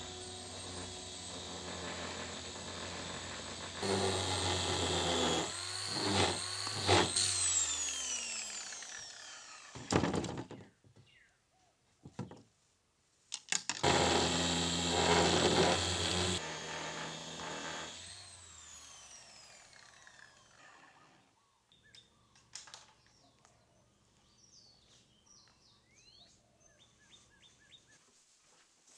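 Corded handheld power tool running with a high whine in two spells, each winding down afterwards in a falling pitch. Faint scattered clicks and rustles follow.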